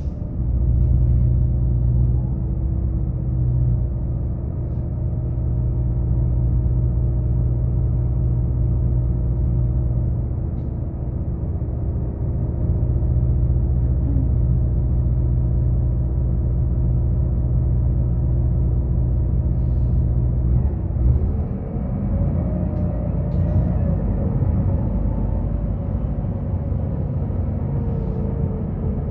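Cabin sound of a Solaris Urbino 12 III city bus: the engine idles with a steady low hum while the bus stands still. About twenty seconds in, the sound changes and the pitch rises and wanders as the bus pulls away and accelerates.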